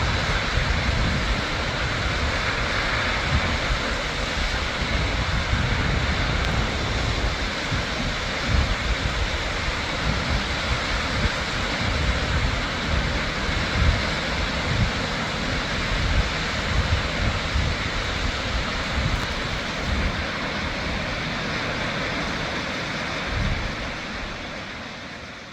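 Shoshone Falls waterfall rushing in a steady, full roar of falling water, with wind buffeting the microphone in uneven low gusts. The sound fades out near the end.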